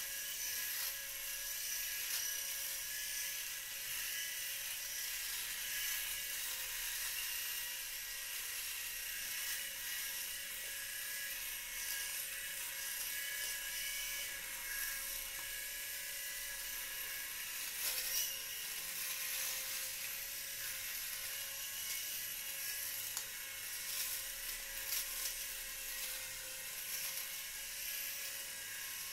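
Electric rotary shaver running steadily against the face, a constant motor whine with a rasping hiss as its heads cut stubble, and a few brief louder crackles later on.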